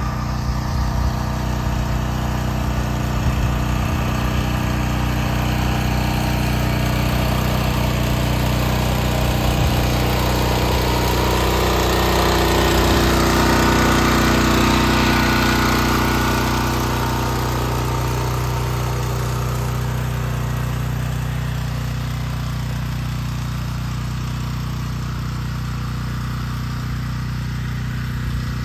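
Petrol engine of a walk-behind brush mower running steadily under load while it cuts grass and brush. It gets a little louder for a few seconds about halfway through.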